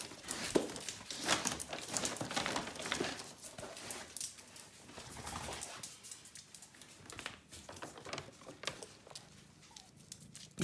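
A large paper carrier bag rustling and crackling as a dog noses into it and a cat shifts inside, busier in the first half and quieter later.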